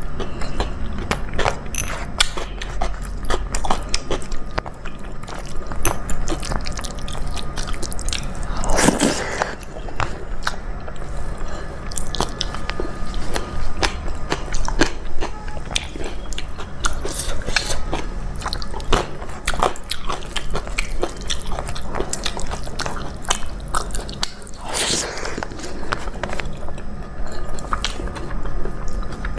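Close-miked eating of a thali of rice, dal and vegetable sabji: steady chewing and wet mouth sounds with many small clicks. Two longer, louder noises stand out, once about a third of the way through and again near the end.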